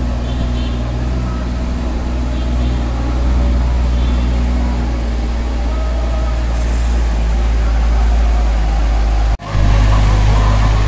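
Tractor engine running steadily as it drives a spray rig along at walking pace. About nine seconds in the sound breaks off for an instant at a cut and comes back louder and closer.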